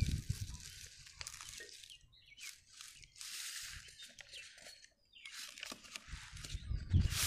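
Paper rustling and crinkling as the pages of a printed exam booklet are handled and turned, in several short bursts, with low handling thumps at the start and near the end.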